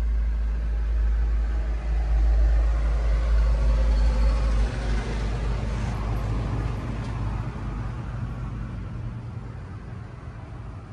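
Low vehicle rumble heard inside a Mitsubishi Canter truck's cab, with a steady low hum. A heavy deep rumble stops about halfway through, and the sound then fades gradually.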